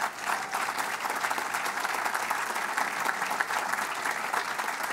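Audience applauding, many hands clapping in a steady dense patter.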